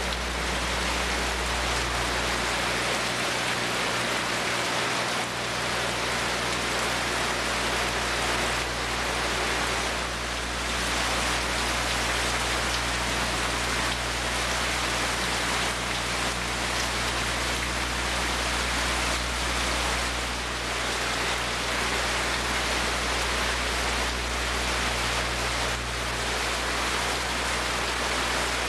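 Steady rain falling, with a steady low hum underneath.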